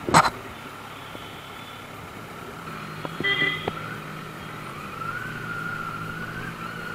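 Motorcycle engine running at low road speed amid traffic, with two sharp knocks right at the start and a short vehicle horn honk about three seconds in.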